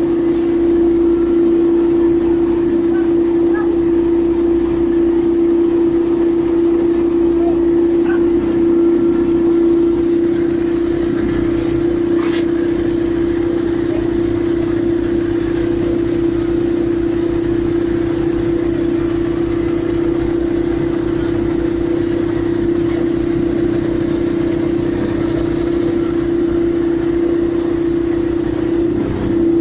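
Sheet pile driving machinery running steadily: a constant, unchanging drone over a fast low rumble, with no separate hammer blows.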